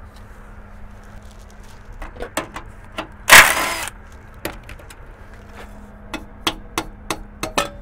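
A cordless impact wrench fires in one short burst of about half a second, spinning the nut off the upper rear shock-absorber stud. Light metal clinks of tools and fasteners come before and after it.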